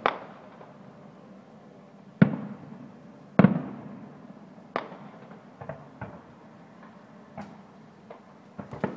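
Aerial fireworks shells bursting: sharp bangs every second or two, each trailing off in an echo, the loudest a double bang about three and a half seconds in, with smaller pops later and a quick cluster near the end.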